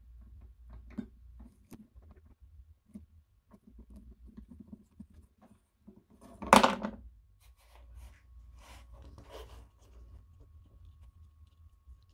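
Small metallic clicks and scrapes of a flat screwdriver turning the screw that holds a wooden handle on an old sewing machine. One sharp, much louder click comes about six and a half seconds in, followed by light scraping handling noise.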